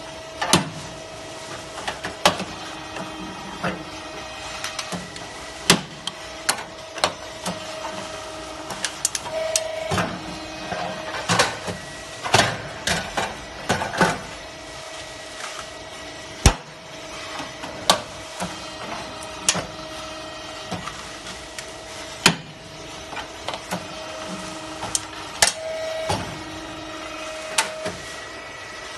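Irregular sharp metal clanks and knocks as steel ladder rails are handled and fitted in a steel jig, over a steady machine hum.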